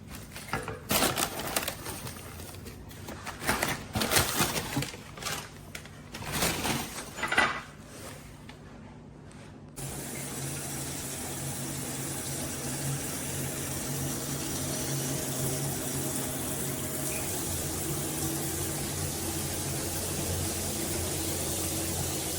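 A run of clicks and knocks from handling, then after a sudden cut about ten seconds in, a steady rush of water spraying from a rain shower head, with a low steady hum under it.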